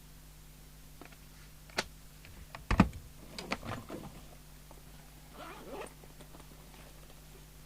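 Objects being handled and moved on a workbench: a few sharp clicks, a heavy knock about three seconds in, then brief scraping and clattering, over a low steady mains hum.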